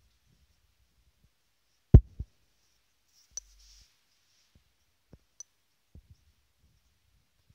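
A few sharp taps and knocks on a phone: a loud pair about two seconds in, then fainter single clicks, as fingers tap the touchscreen and handle the phone.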